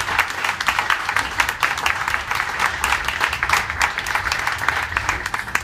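Audience applauding: many hand claps overlapping throughout.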